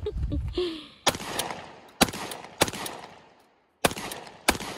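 Shotgun fired in a string of about five sharp shots, each with a short echoing tail, spaced roughly half a second to a second apart.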